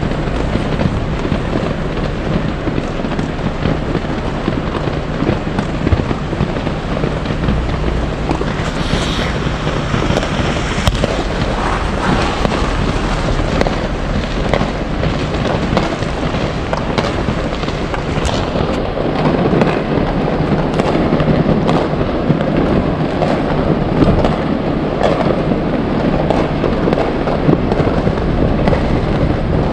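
Many fireworks going off at once in a continuous barrage of overlapping bangs, pops and crackles.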